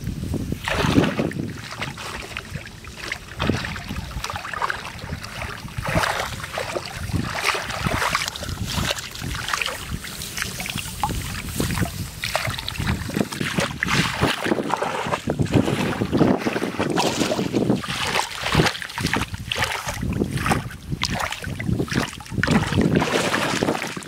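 Shallow water splashing and sloshing in uneven bursts, as when water is stirred and scooped by hand in search of fish.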